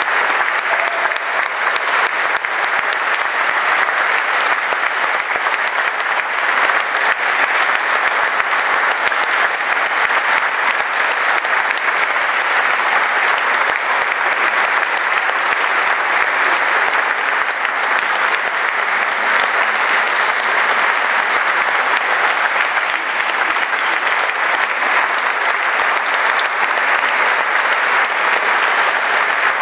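Audience applauding, a dense, steady clatter of many hands clapping that holds at the same level without letting up.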